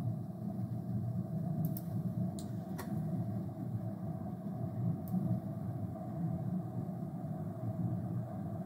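Steady low rumble of room background noise picked up by the microphone. A few short computer mouse clicks come about two to three seconds in and once more around five seconds.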